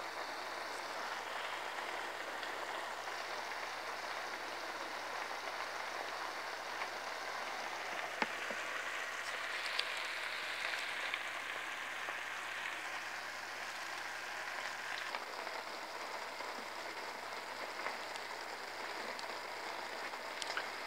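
Seafood paella cooking in a wide paella pan: the rice and stock sizzling with a steady crackle, with a few small pops.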